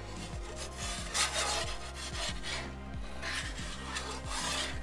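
Perforated metal pizza peel scraping across the stone floor of a gas pizza oven, in four short rasping strokes about a second apart, as the pizza is worked round on the stone.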